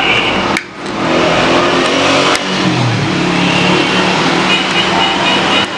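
A motor vehicle's engine running and revving over steady traffic noise. Its pitch dips and then climbs again about three seconds in.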